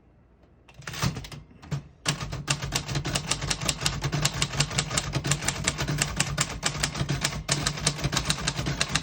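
1949 Royal Arrow portable typewriter being typed on: a few single clicks about a second in, then from about two seconds a rapid, even run of keystrokes, the typebars snapping against the platen at about six a second.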